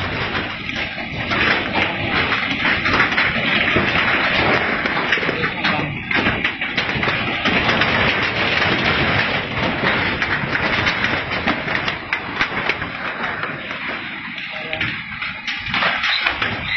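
Loud, continuous churning roar of earth, uprooted trees and debris flowing and breaking up as the ground moves in an earthquake, with no pauses.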